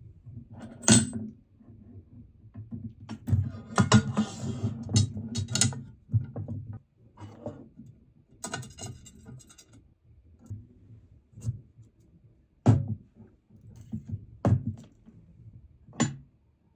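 Metal panels and frame pieces of a Formd T1 PC case being handled and fitted together on a wooden desk: sharp clicks and knocks, a busy stretch of clattering and scraping from about three to six seconds in, then single knocks every second or two.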